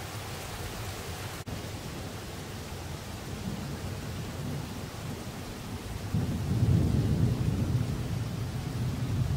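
Thunder rolling in as a deep rumble that swells about six seconds in and keeps rolling, over a steady hiss of rain.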